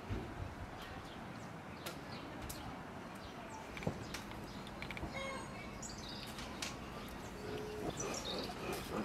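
Birds chirping now and then over a steady background hiss, with a few light taps and clicks of small decorations being handled.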